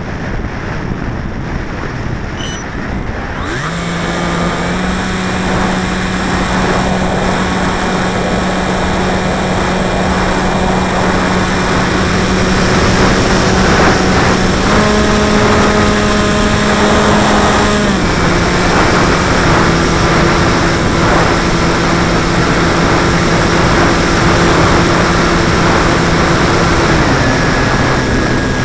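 Electric motor and propeller of a battery-powered radio-controlled model aircraft, heard from on board, droning at steady pitches that step with the throttle. The drone comes in about three seconds in, rises in pitch around the middle, drops back, and lowers again near the end, over a rushing hiss of air on the microphone.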